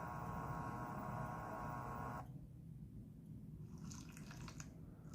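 A low, steady electrical hum that cuts off suddenly about two seconds in, followed by two short runs of faint clicking.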